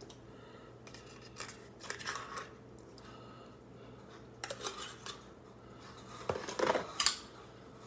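Metal scraping and clinking as wet cat food is scooped out of an open can, in short scrapes scattered through, with the loudest clinks near the end.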